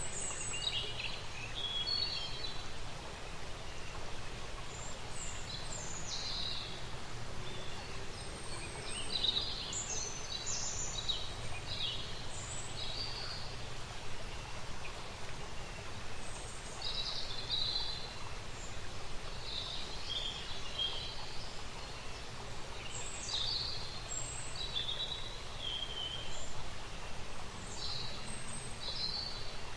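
Outdoor nature ambience: a steady background hiss with small songbirds chirping and calling on and off throughout.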